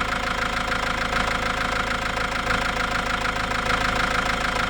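Toyota 2KD four-cylinder common-rail diesel engine idling steadily with its usual diesel clatter, running normally now that its crank-no-start fault has been fixed.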